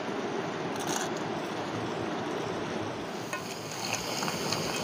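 Steady rush of flowing river water, with a few light clicks from about three seconds in as river snails are stirred in a metal pot.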